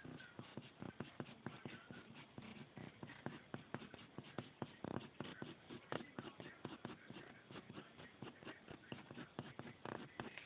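Faint, irregular ticking and scratching of a graphite pencil working on drawing paper, several quick strokes a second.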